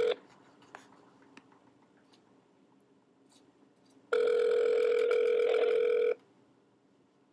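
Telephone ringback tone heard from a mobile phone's earpiece: a steady two-second ring about four seconds in, after the end of the previous ring right at the start, the call ringing and not yet answered.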